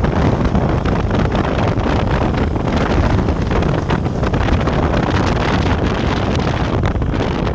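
Wind buffeting the microphone with steady road traffic noise behind it. No horn is sounding.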